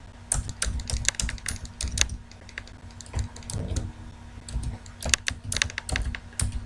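Typing on a computer keyboard: key clicks in quick, irregular runs, with a brief pause about halfway through.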